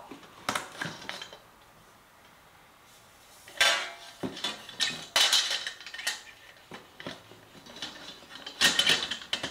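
IKEA TESAMMANS pendant lamp shades, nested cones, clattering and clinking as they are handled and fitted together during assembly. The sound comes in several short bursts, with a quiet pause of about two seconds after the first.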